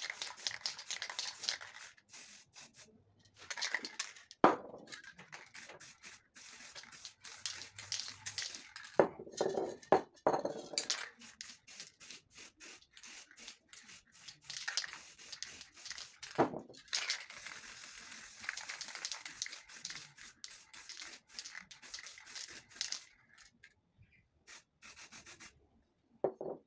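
Aerosol spray paint cans hissing in bursts, and a hand rubbing and wiping across paper coated in paint. A few sharp knocks come as cans are handled and set on the table.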